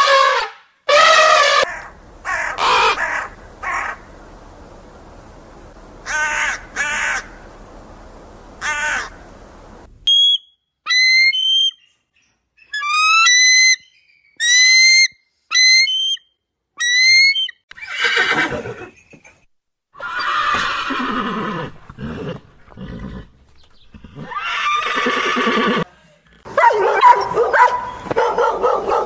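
African elephant trumpeting at the start, with a few more calls over the next several seconds. From about ten seconds in, a bald eagle's thin, high piping chirps come in quick runs. From about eighteen seconds a dog whines and barks.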